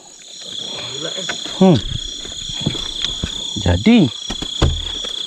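Night chorus of crickets and other insects, a steady high trill with a faster pulsing trill above it, with frogs calling. Two short low grunts, about a second and a half and four seconds in, and a dull knock shortly before the end.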